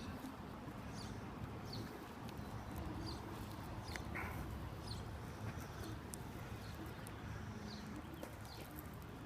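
Faint outdoor ambience: small birds chirping in short high calls over a low steady rumble.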